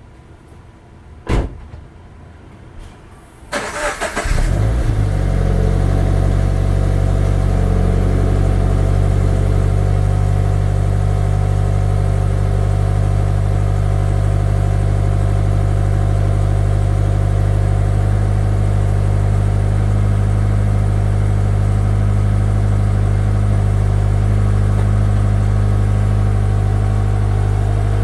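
Subaru BRZ's 2.0-litre flat-four started from cold: a sharp click about a second in, then a few seconds in the starter cranks briefly and the engine catches, settling into a loud steady idle.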